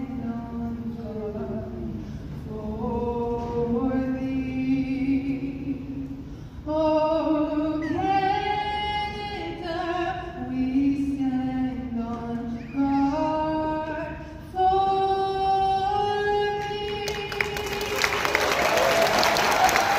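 A small vocal ensemble sings in harmony and ends on a long held note. Near the end the audience breaks into applause.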